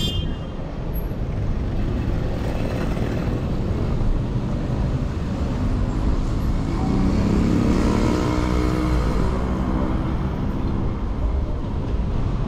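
Street traffic: a steady low rumble of road noise, with a vehicle engine passing close by and loudest from about six to ten seconds in.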